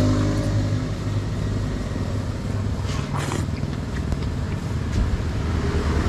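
A motor vehicle's engine running steadily with a low hum, with a brief hiss about three seconds in.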